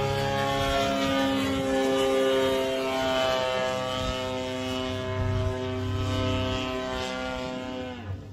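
Radio-controlled model airplane's propeller engine running at high throttle overhead, a steady buzzing drone with a slight drift in pitch. About eight seconds in, the note falls sharply and drops away.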